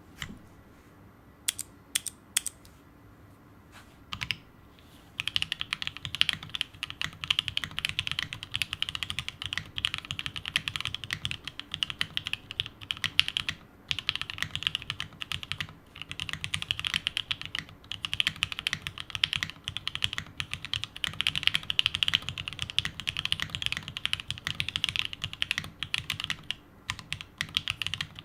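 Custom 7V mechanical keyboard, plateless, with lubed and filmed H1 switches and CRP keycaps, being typed on: a few separate key presses at first, then steady fast typing from about five seconds in, with a brief pause near the middle.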